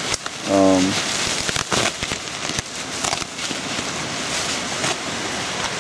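Steady hiss of heavy rain, with a few sharp clicks and knocks from handling. There is a brief voiced hum about half a second in.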